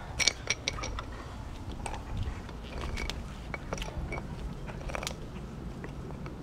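Siberian husky gnawing on a bone, her teeth cracking and crunching on it in irregular clusters of sharp clicks.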